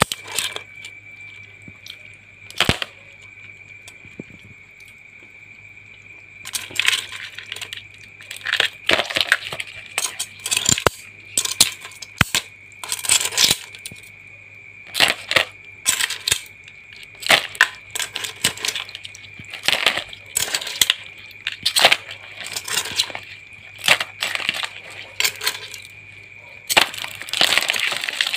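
Live mud crabs being handled and dropped into a plastic basin, their hard shells and claws clicking and clattering against the plastic and each other. The clicks are sparse at first, then come thick and irregular from about a quarter of the way in, over a steady thin high whine.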